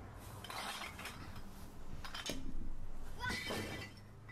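Plastic garbage bags being lifted and dropped, with the bottles and cans inside clinking and clattering in several bursts.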